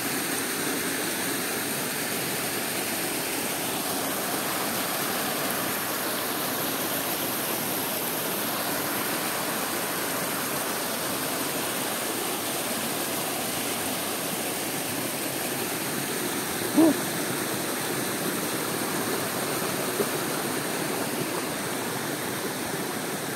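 Steady rushing of stream water spilling in small cascades over granite rock. One short pitched sound stands out briefly about two-thirds of the way through.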